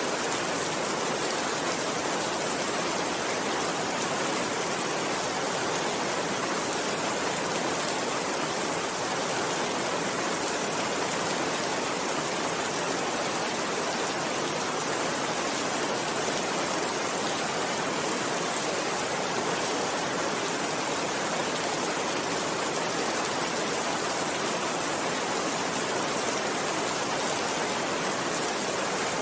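Steady rainfall: an even, unchanging hiss of many drops, with no single drops or breaks standing out.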